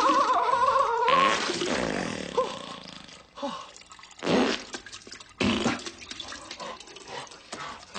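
A man's long, wavering yell ends about a second in, followed by comedic diarrhoea sound effects into a toilet: sputtering farts and splatters, with the loudest bursts about four and five and a half seconds in.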